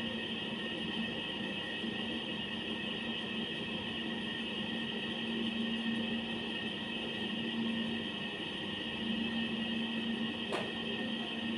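Steady machine hum with an even hiss, and one sharp click about ten and a half seconds in.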